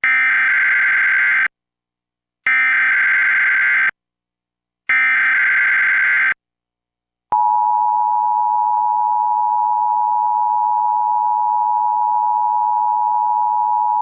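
Emergency Alert System tones for a Required Monthly Test. First come three short bursts of SAME header data, each about a second and a half, with a second of silence between them. About seven seconds in, the steady two-tone EAS attention signal begins and holds unchanged.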